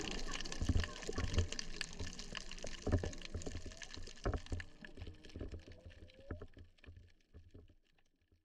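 Humpback whale song heard underwater: faint drawn-out moaning tones, one rising slowly about five seconds in, over a steady crackle of clicks and low water sloshing. It all fades out near the end.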